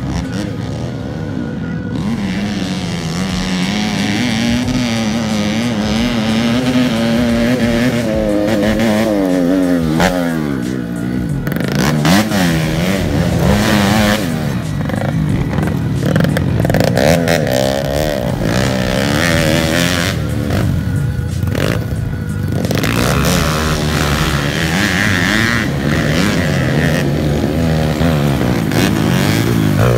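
Dirt bike engines revving up and down as the bikes ride the dirt track. The pitch rises and falls over and over, and the sound breaks off sharply a few times.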